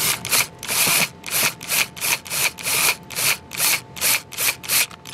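Cordless drill-driver with a screwdriver bit driving screws into a generator's side cover, running in short bursts about three times a second.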